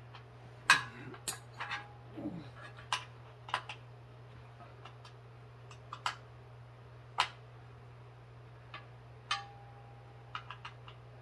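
Allen wrench clicking and clinking against the steel frame of a flat weight bench as its bolts are tightened by hand: scattered sharp metallic clicks at uneven intervals, two of them ringing on briefly, over a steady low hum.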